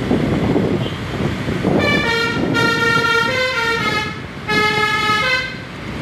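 Agam Tungga Jaya tour bus's basuri telolet multi-tone horn playing a stepping melody: a phrase of about two seconds starting about two seconds in, then a shorter phrase about half a second later. Steady engine and road noise runs underneath.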